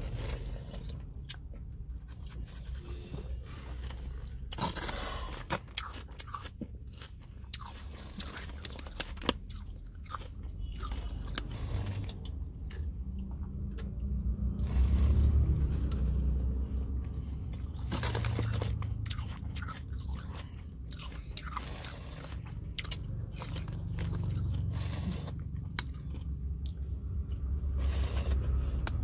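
Close-miked chewing and crunching of shaved ice: many sharp crunches, over a low rumble that swells a few times.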